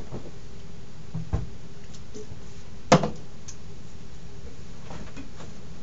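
Steady room hiss with two short knocks, as of something set down on a hard surface. The louder knock comes about three seconds in.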